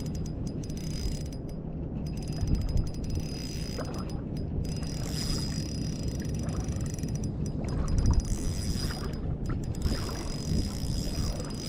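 Fishing reel being wound in steadily during the retrieve of a fish, with wind noise on the microphone.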